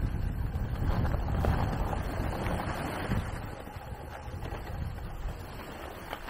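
Wind buffeting the microphone of a camera carried by a skier on the move downhill, a low rumbling roar with the hiss of skis sliding over snow. It grows quieter over the second half as the skier slows.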